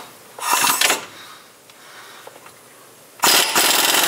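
Impact wrench hammering on the rear differential's pinion nut to zip it off: a brief burst about half a second in, then a loud, steady hammering run from about three seconds in.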